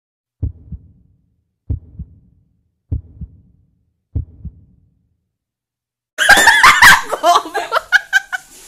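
A heartbeat sound effect: four low double thumps, lub-dub, about a second and a quarter apart, with dead silence between them. About six seconds in, loud laughter and shrieking break out.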